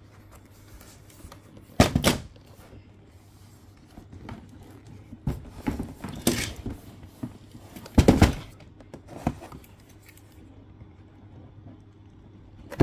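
A large cardboard box being handled and turned over: several separate bumps and scuffs against the table and hands, two louder ones about two and eight seconds in, and a sharp click near the end.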